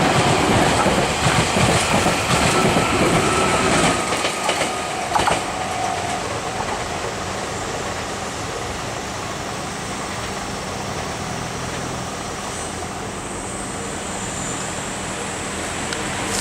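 Meitetsu 3500 series and 3150 series electric train passing, its wheels clattering over the rails. The noise drops away about four seconds in as the last cars go by, leaving a fainter steady rumble.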